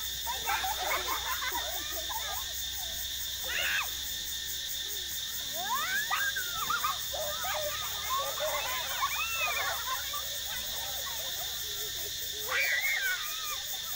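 Children's shouts and squeals coming and going, over a steady high insect drone.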